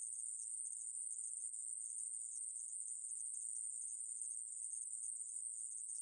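Aemaeburi, a Ruspolia conehead katydid, singing: one continuous high-pitched buzz, steady and unbroken.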